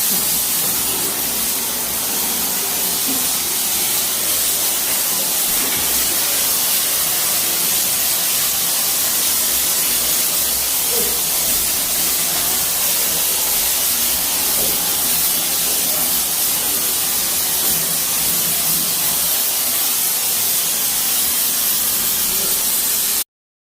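A steady hissing spray, even and unbroken, that cuts off suddenly near the end.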